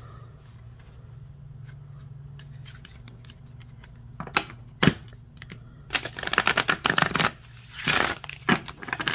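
A new deck of oracle cards being shuffled by hand. It is quiet for the first few seconds, then a couple of sharp card snaps come about four to five seconds in. In the second half there are quick runs of riffling, fluttering card strokes.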